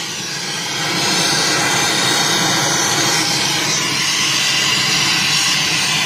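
Brazing torch burning with a steady, loud hiss as its flame heats a copper line; the hiss builds up about a second in.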